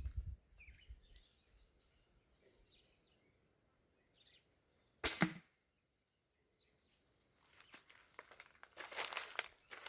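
A single air rifle shot about five seconds in, a sharp crack with a short tail. Rustling handling noises follow near the end.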